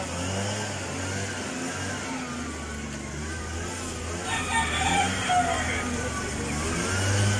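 A rooster crows once, about four seconds in, over a steady low hum.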